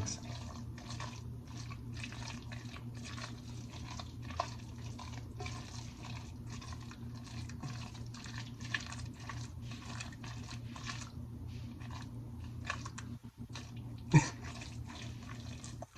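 Wet, squishy mixing of a mashed chickpea salad in a bowl, the utensil working the mixture in quick repeated strokes, over a steady low hum. There is one sharper knock near the end.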